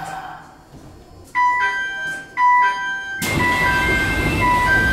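Electronic door chime at a Sendai Subway Tozai Line station stop: clear two- and three-note tones repeating about once a second, starting about a second in. About three seconds in, a loud rushing noise comes in and runs on under the chime.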